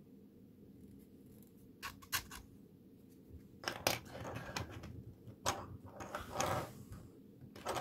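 Small 3D-printed PLA plastic pieces handled and set down on a wooden bench. Light clicks and taps start about two seconds in, mixed with short scraping slides as the pieces are pushed into line.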